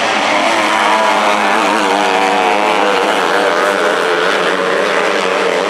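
A pack of 250cc winged micro sprint cars racing on a dirt oval, several engines at once, their pitch rising and falling as they rev through the turns.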